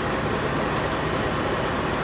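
Steady, unbroken machine noise with a low rumble underneath.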